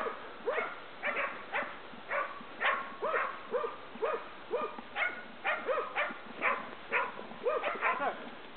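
Hunting dogs barking steadily, about two short barks a second, baying a wild boar they are holding at bay.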